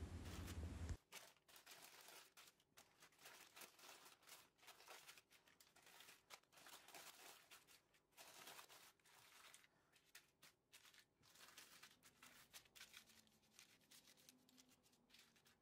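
Baking paper crinkling and rustling faintly in irregular bursts as it is handled and tucked into a round glass baking dish. A low hum cuts off about a second in.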